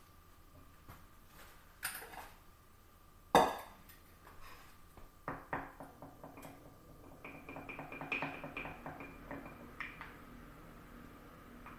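A fork beating eggs in a small glass bowl: a quick run of light clinks of metal on glass, after a single sharp knock about three and a half seconds in.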